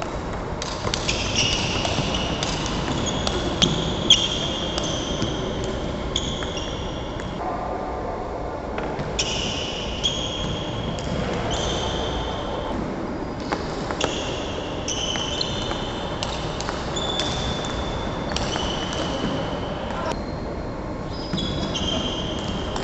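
Table tennis rally: the celluloid ball clicking sharply off paddles and table many times over, with sports shoes squeaking in short high-pitched chirps on the wooden hall floor as the players move.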